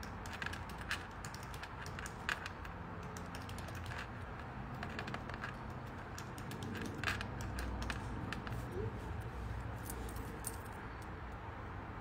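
Irregular keystrokes and clicks on a computer keyboard, a few taps at a time with short pauses, over a low steady background hum.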